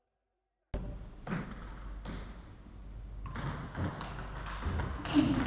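Table tennis rally: a ping-pong ball clicking off paddles and bouncing on the table, roughly one or two knocks a second, over a hall's low hum. It starts suddenly under a second in.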